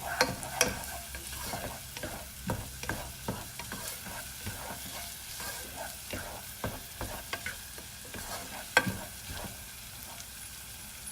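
Chopped onion and garlic sizzling in hot oil in a pan over high heat, with a utensil stirring and tapping against the pan in irregular clicks. The sharpest knock comes about nine seconds in.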